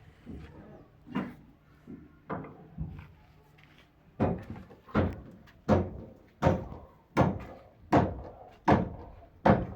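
Hammer blows: a few scattered knocks, then from about four seconds in a steady run of strokes at roughly one every three-quarters of a second, each ringing briefly.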